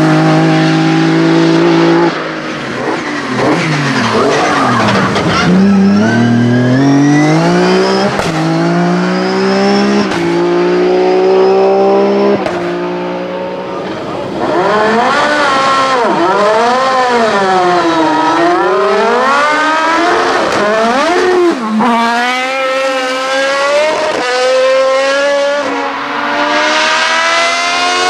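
Race car engines at full load. First a BMW saloon race car accelerates away through several upshifts, its pitch climbing and dropping at each shift. About halfway through, a single-seater formula car's engine takes over: it is revved up and down several times, then accelerates hard with quick upshifts.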